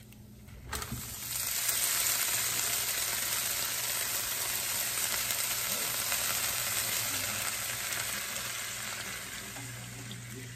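Hot oil sizzling steadily in a nonstick frying pan with soaked wide glass noodles frying in it. The sizzle starts about a second in and eases a little near the end.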